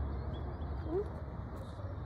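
Outdoor street background: a steady low rumble with a few faint bird chirps and one short rising call about a second in.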